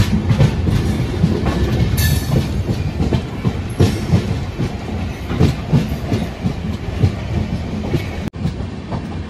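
Siddeshwar Express passenger train running on the track: a steady low rumble with the wheels clattering over rail joints in irregular knocks. The sound cuts out for an instant near the end.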